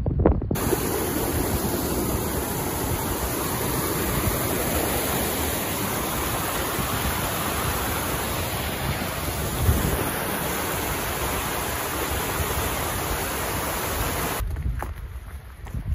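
Small mountain stream rushing over rocks, a steady full hiss of running water. Near the end it cuts off and gives way to wind buffeting the microphone.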